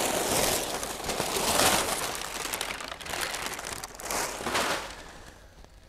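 Crumpled brown packing paper crinkling and rustling as it is pulled out of a wooden shipping crate by hand, in a few uneven surges that fade near the end.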